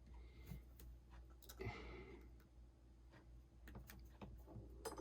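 Faint, scattered small clicks and taps from handling iPhone 6 parts and tools during a screen replacement, with a soft rustle about two seconds in and a slightly louder click near the end.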